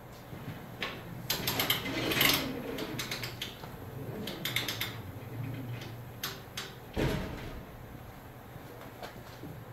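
Workshop tool handling: scattered metallic clicks and clattering in short clusters, with a single thump about seven seconds in. No impact wrench running.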